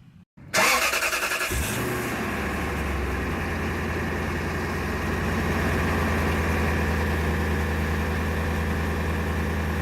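Lexus LS400's 4.0-litre V8 cranked by the starter, catching about a second and a half in and settling into a steady idle.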